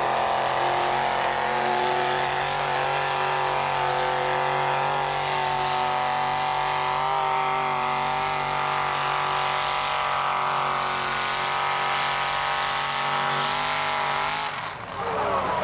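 Pulling tractor's engine held at high revs while it drags a weight-transfer sled, a steady loud drone that drops away about a second before the end.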